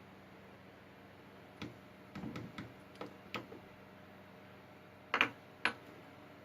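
Light clicks and taps of small metal lock parts being handled as a Kwikset lock is taken apart: a scatter of faint clicks from about a second and a half in, then two sharper clicks near the end.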